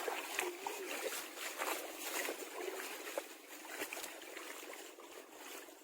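Shallow seawater sloshing and splashing, with scattered small clicks and trickles of water, slowly getting fainter.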